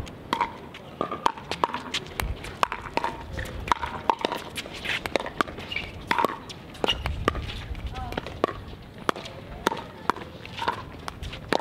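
Pickleball doubles rally: many sharp pops of paddles hitting the plastic ball, and of the ball bouncing on the hard court, in quick irregular succession.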